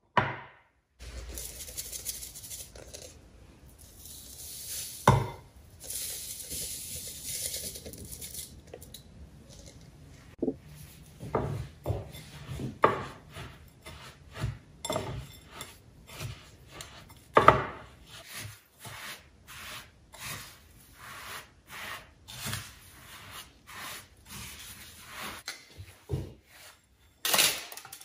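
Kitchen utensils and bowls being handled while preparing food: irregular knocks and clinks against bowls and dishes, with stretches of scraping and rubbing in the first part and a run of sharper knocks later, one louder knock about two-thirds of the way through.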